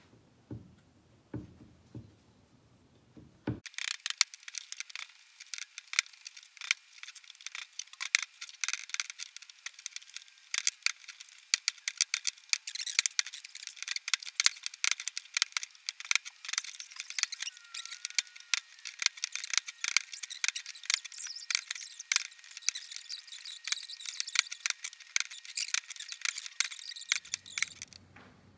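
Knife blade knocking on a wooden cutting board as hot dogs are sliced. About three and a half seconds in, it turns into a dense, high-pitched chatter of rapid clicks with nothing low in it: the chopping played back fast-forward. The chatter stops shortly before the end.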